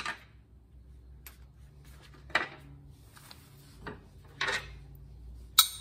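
Scattered metal knocks and clinks as a loose mower blade and broken spindle assembly are shifted about on a steel mower deck, with the sharpest clank, briefly ringing, near the end.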